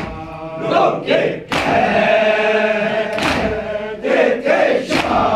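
A group of men chanting a farewell latmiyah together, with loud slaps of hands striking chests (matam) cutting through the chant several times.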